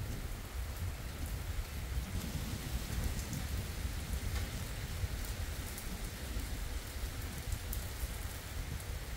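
Steady rain falling on a road and fields during a thunderstorm, with scattered drop ticks and a constant low rumble underneath.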